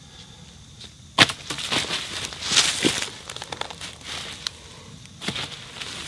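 Footsteps crunching in dry leaf litter and a plastic tarp rustling as it is handled, with a sharp knock about a second in. The crackling pauses for a moment and picks up again near the end.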